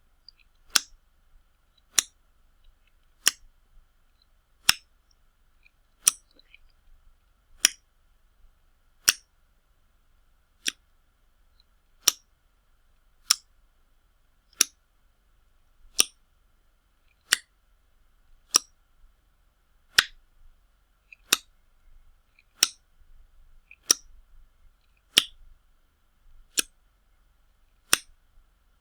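A series of loud wet slaps, about twenty single sharp smacks, one every second and a half or so, with silence between them.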